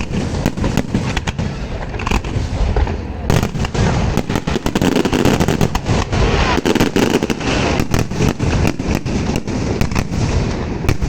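Fireworks going off in a dense, continuous salvo: many sharp bangs and crackles in quick succession over a rolling rumble of booms.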